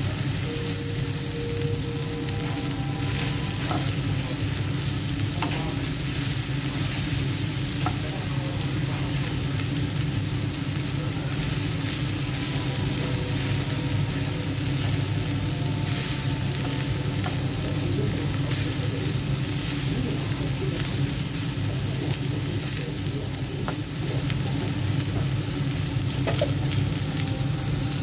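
Chicken strips and sliced red onion frying on a cast-iron griddle pan, sizzling steadily, with a few light clicks of metal tongs stirring them against the pan.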